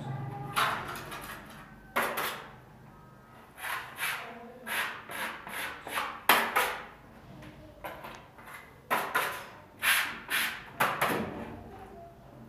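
Plaster being scraped with a small hand tool and trowel: a series of short, irregular scraping strokes, some quick pairs, most of them in the second half.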